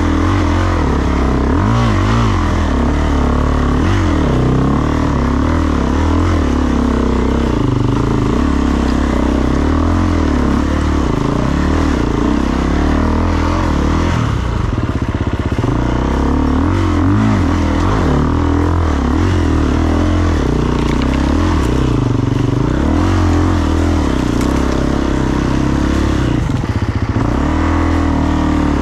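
A vehicle's engine running continuously while being driven, its revs rising and falling.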